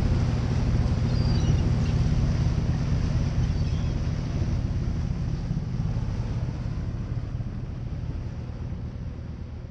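Fishing boat's engine running steadily under way, with water rushing in the wake and wind on the microphone; a few faint gull calls about a second in. The sound slowly fades toward the end.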